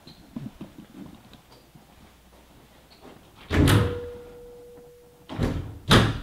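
Double closet doors being pulled open: a loud thunk about halfway through, with a faint ringing tone trailing after it, then two more knocks close together near the end.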